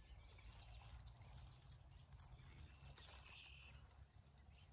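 Near silence: faint outdoor ambience with a low wind rumble and a few faint bird chirps.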